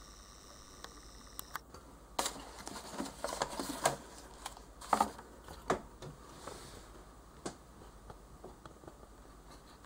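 Light handling noise while the camera is moved back to frame the whole page: scattered soft clicks and rustles, bunched between about two and six seconds in, with one more click later.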